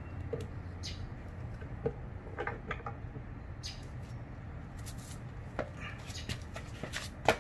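Scattered light clicks and knocks of hands handling a Nissan VG33 cylinder head and its parts, with one sharper knock near the end.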